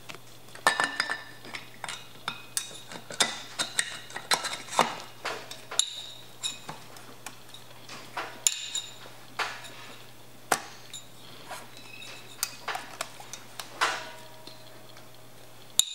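Aluminium cylinder head of a Honda CRF250R engine being worked down over the cylinder studs and seated on the cylinder: irregular metal clinks and knocks, with a brief ringing clink near the end.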